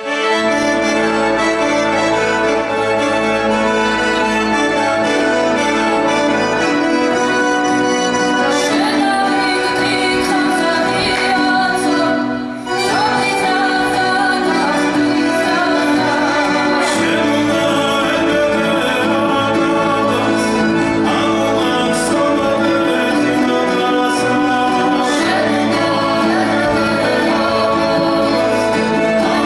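Georgian folk ensemble playing a dance tune live on plucked lutes, frame drums and accordion. It starts abruptly and briefly dips in level about twelve seconds in.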